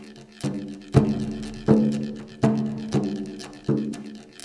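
Loop-built afro-house / ambient electronic music: struck percussion hits, each fading out, in a slow, slightly uneven pattern over a steady low drone.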